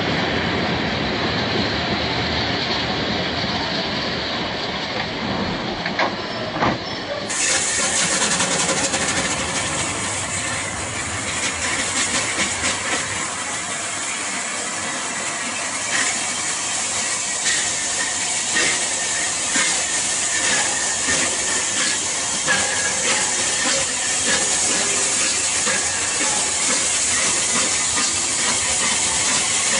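Steam train passing at close range: a continuous hiss of escaping steam. After a cut about seven seconds in, Southern Railway Bulleid Battle of Britain class 34067 Tangmere comes through with steam hissing from around its cylinders and a run of clicks as the wheels cross the rail joints.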